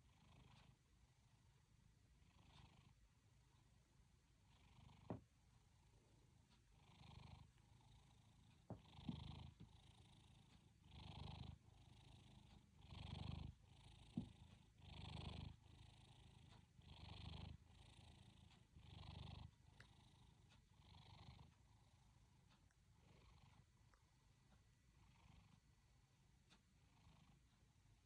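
Domestic cat snoring faintly in its sleep: a soft rasp on each breath, about one every two seconds, growing louder toward the middle and fading again near the end. A few brief clicks fall between the breaths.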